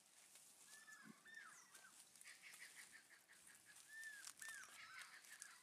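Near silence with a faint bird singing: a short phrase of arched whistled notes, given twice.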